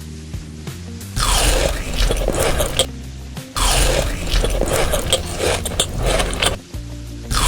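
Music with held notes, broken twice by long stretches of loud, crackling, crunchy noise full of small clicks, about a second in and again halfway through.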